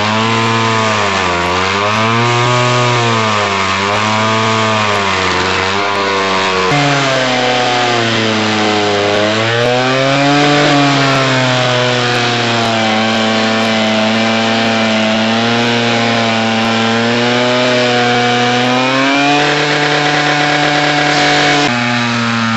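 Alpine Magnum stump grinder running under load as its cutting wheel chews into a wood stump. The engine bogs down and recovers about every two seconds, then in slower, shallower sags; the engine slowing as more torque goes into the stump.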